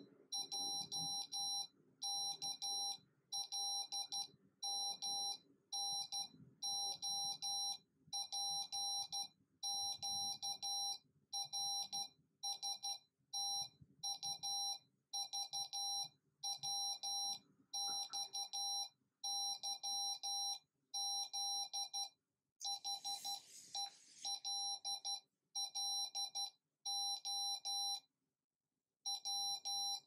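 Arduino-generated Morse code tone from a small speaker: a steady mid-pitched beep keyed on and off in short dots and long dashes, spelling out letters of the alphabet. A longer gap between words comes near the end.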